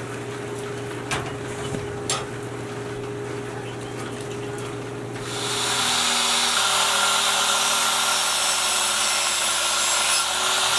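Steady background hum with two light knocks in the first seconds; about five seconds in, an electric miter saw starts and runs loud and even, its blade brought down onto a wooden yardstick.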